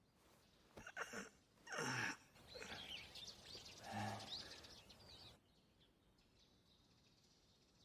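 A small dog-like creature yelping and whining: a few short calls falling in pitch, then a run of higher chirping whines, stopping a little past halfway.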